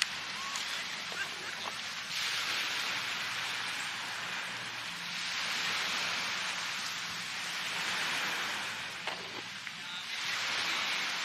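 Sea surf washing onto a beach: a hiss that swells and fades every few seconds.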